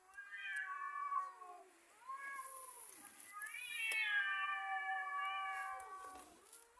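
Two cats yowling at each other in long, drawn-out wails that rise and fall in pitch: the threatening caterwaul of an angry standoff between cats. A first wail lasts about two seconds, a brief one follows, then a second long wail of about three seconds.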